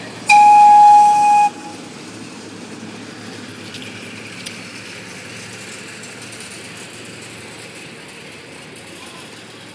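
A small zoo passenger train sounds its horn in one steady blast lasting a little over a second, then runs past with a steady running noise.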